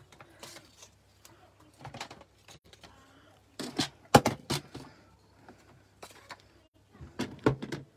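Paper and cardstock being handled and set down on a craft mat: scattered taps, slides and rustles, with the loudest cluster of knocks about four seconds in and another near the end, over a faint steady low hum.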